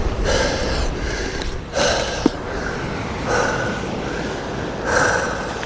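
A man breathing hard, four heavy breaths about a second and a half apart.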